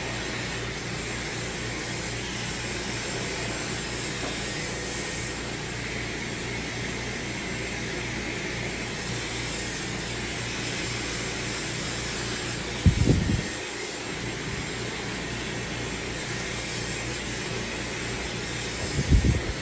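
Dyson Supersonic hair dryer blowing steadily, a continuous rush of air with a faint high whine, as it is worked through wet hair. Two brief low bumps stand out about two-thirds of the way in and again near the end.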